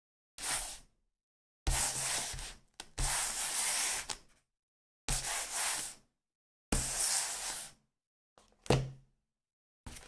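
A small book slid across a tabletop in five separate rubbing strokes, each lasting about one second, the third one longer. Near the end comes a faint touch and then a sharp knock.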